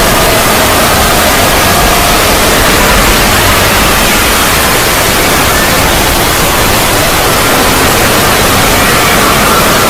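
Loud, steady static-like hiss spread across all pitches, with faint wavering tones drifting through it: a synthetic 'void' ambience sound effect.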